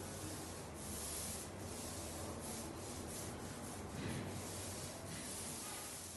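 Paint roller on an extension pole rolling paint across a ceiling: a continuous rubbing swish that swells and fades with the strokes.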